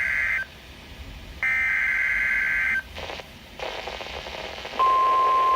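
NOAA Weather Radio Emergency Alert System broadcast: a SAME header data burst, a harsh buzzing screech, ends just after the start, and another lasting about a second and a half plays a second or so later. Nearly five seconds in, the steady 1050 Hz weather radio alert tone begins, the tone that marks a warning.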